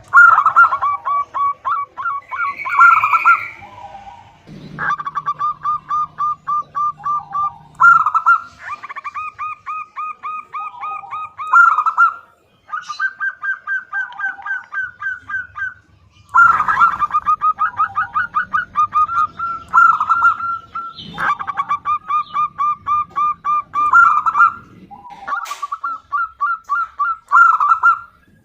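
Female zebra dove (perkutut) calling to draw a male: runs of rapid, evenly spaced cooing notes, about five or six a second, in bouts of three to four seconds, repeated about seven times with short breaks between.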